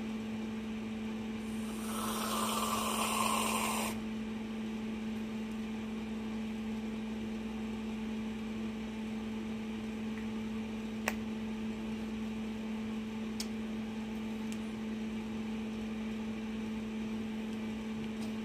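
Aerosol can of Whipped Shots vodka-infused whipped cream sprayed straight into the mouth: a hiss of about two seconds, starting a second and a half in. A steady low hum runs throughout, with one sharp click about eleven seconds in.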